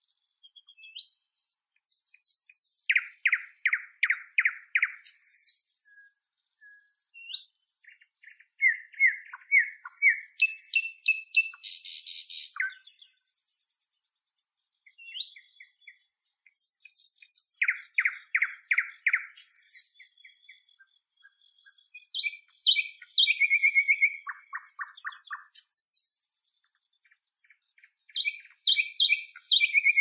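Nightingale singing: phrase after phrase of fast repeated notes, clear whistles and a dense rattling trill, with pauses of a second or two between phrases.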